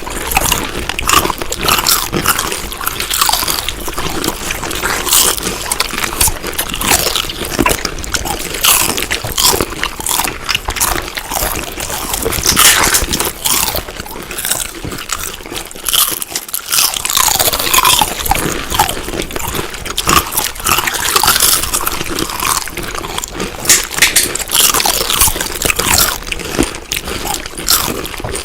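Crunchy chewing of food: a continuous run of irregular crunches and bites.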